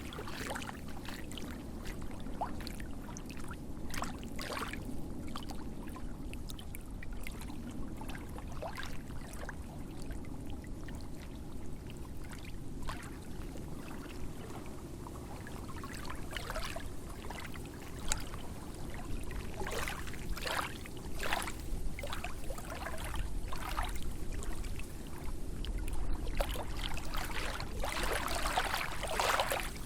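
Lake waves lapping and splashing in irregular small splashes over a steady low wash of water. The splashes come thicker near the end.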